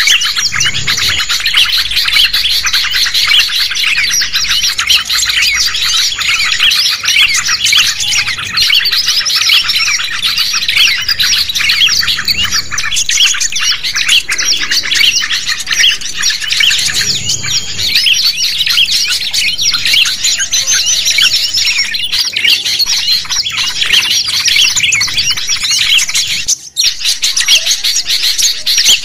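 Dense, continuous chorus of many small songbirds chirping and twittering over one another: a compiled bird-lure recording of 'noisy birds', meant to draw wild birds in. It breaks off briefly near the end.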